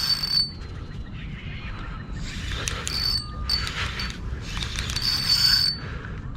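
Daiwa Freams spinning reel's drag buzzing as a hooked fish takes line, in three runs of about a second each: a short one at the start, then about 2.5 s and 5 s in.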